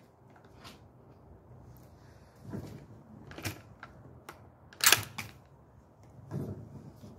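Light clicks and knocks from handling a rifle and shooting gear, a few scattered sharp clicks with the loudest about five seconds in, and some soft shuffling between them.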